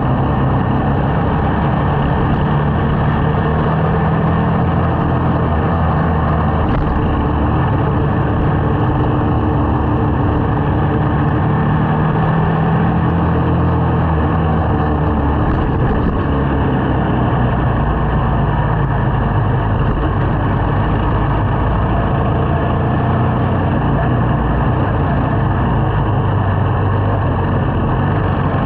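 Small motorcycle's engine running while riding along, a steady drone whose pitch shifts a little with the throttle.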